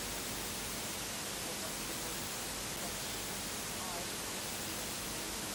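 Steady, even hiss-like background noise of a football match broadcast, with faint voices in it.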